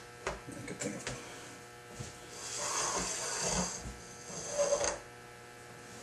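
Steel divider point scratching an arc into galvanized sheet metal during layout. There are a few light clicks at first, then a long scratchy stroke starting about two seconds in and a shorter one near the end, over a faint steady electrical hum.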